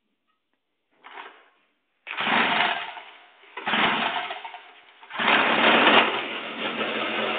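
Two-stroke chainsaw engine powering a homemade trike being started: a short sputter about a second in, two brief bursts of running that each die away, then it catches and keeps running from about five seconds in.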